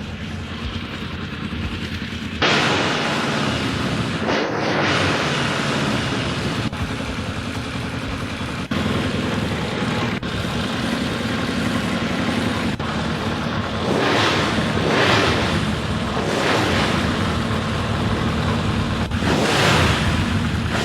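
Honda CB750 inline-four motorcycle engine running, with several surges in level about two and a half seconds in and again in the last seven seconds.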